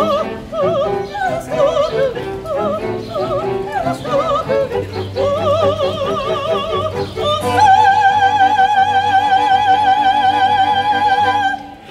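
Operatic singing with heavy vibrato, accompanied by a cello and violins. About halfway through, the singer holds one long high note over a low sustained cello note.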